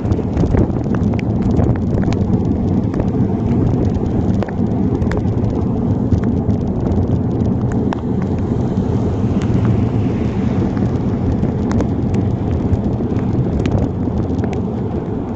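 Wind buffeting the microphone and heavy rain while cycling, a steady low rushing noise, with many scattered sharp ticks of raindrops striking the phone.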